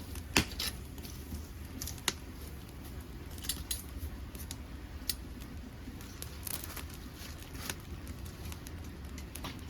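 Dead podocarpus wood burning in a homemade wood-gas stove, crackling with scattered sharp pops over a steady low rumble. The two loudest pops come about half a second and two seconds in.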